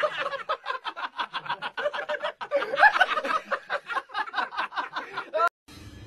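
A person laughing in a long unbroken run of quick chuckles, several a second. It cuts off suddenly near the end and gives way to a faint steady hum.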